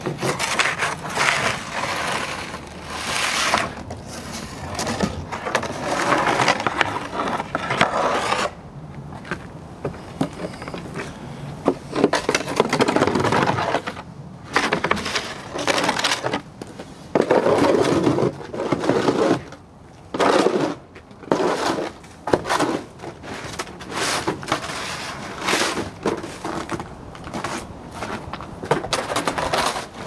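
Irregular scraping and crunching of snow close to the microphone, in uneven bursts with a few short pauses, as snow on a deck railing is pushed and knocked about.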